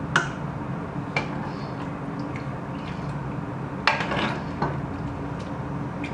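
A few scattered clinks and scrapes of a kitchen utensil against cookware as seafood sauce is poured over spaghetti, the sharpest a little under four seconds in, over a steady low hum.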